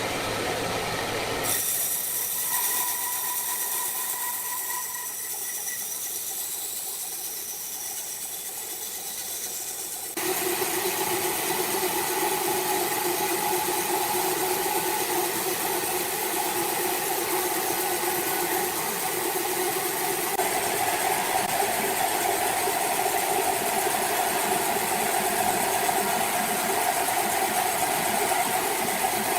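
An engine runs steadily in a sawmill, with a rattle in it. About ten seconds in it jumps suddenly to a louder, fuller running note and holds there.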